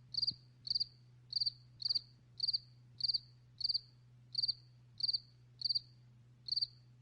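Cricket chirping: short pulsed chirps, high in pitch, repeating evenly about three times every two seconds.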